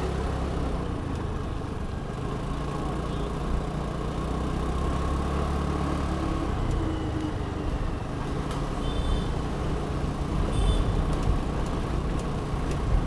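Riding a scooter through city traffic: a steady low engine hum under road and traffic noise. A few short high beeps come in the second half.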